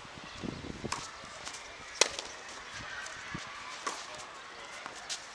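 Tennis rally: rackets striking the ball, a few sharp pops a second or two apart, the loudest about two seconds in.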